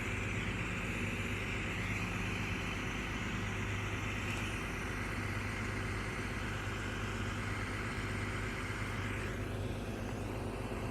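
Steady low hum of a vehicle engine idling.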